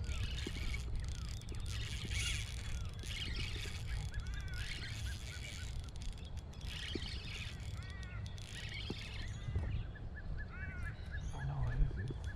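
Birds calling with many short, repeated chirps over a steady low rumble.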